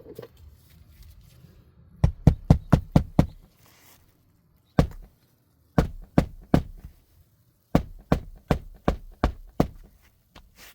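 Sharp knocks in quick runs of about four a second: a run of six, a single knock, a run of about four, then about seven more near the end.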